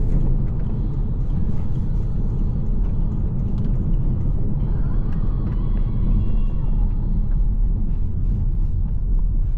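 VW T-Roc on the move: a steady low rumble of engine and tyres on the road.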